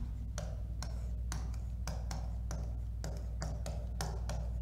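Marker pen writing on a whiteboard: quick, irregular taps and short scrapes of the tip against the board, over a steady low hum.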